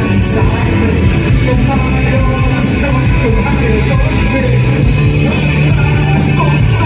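A post-punk rock band playing live and loud: electric guitars strumming over bass guitar and drums, steady and without a break.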